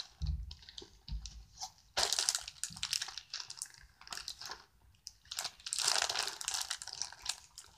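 Clear plastic bag crinkling as it is handled and opened, in two spells of crackling, with a couple of dull bumps near the start.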